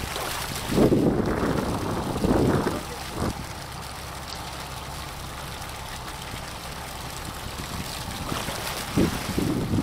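Sea water washing against a fishing boat's hull, with wind on the microphone. The wash runs steadily, with louder surges about a second in, again a little later, and near the end.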